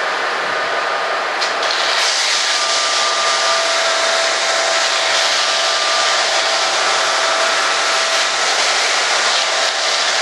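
Power sander running steadily against foam, a continuous hiss with a faint whine, a little louder about two seconds in as it takes the mill marks and rough surface off a machine-cut foam part.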